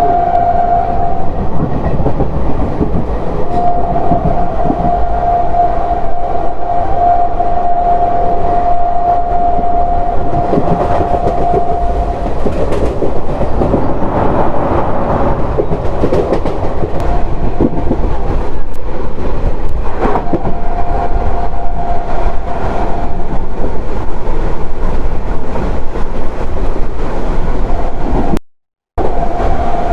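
An ICF passenger coach running at speed, with heavy rumble and wheels clattering over the rail joints. A steady high tone sounds for several seconds in the first half. The sound drops out briefly near the end.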